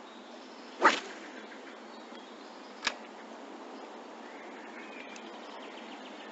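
Two sharp snaps from fishing tackle during a cast, about two seconds apart, the first much louder.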